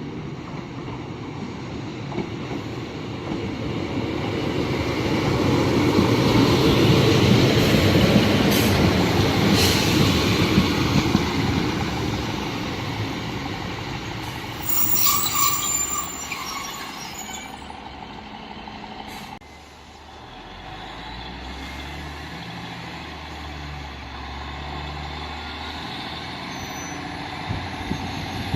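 A train running through the station, its rumble building to a peak and then fading. Midway there is a brief high-pitched burst. Later a low, steady engine drone follows.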